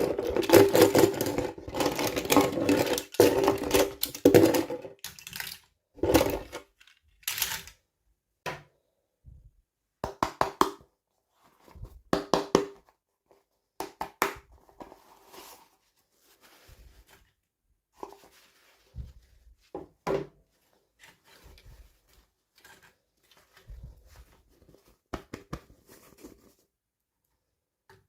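Hands handling and opening plastic toy packaging: a busy run of rustling and clattering for about the first five seconds, then scattered short clicks, taps and crinkles.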